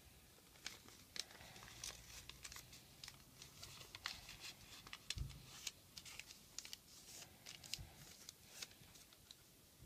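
Origami paper crinkling and crackling in the hands as it is folded and pressed, in a quick, irregular run of small crackles. There is one dull low bump a little past halfway.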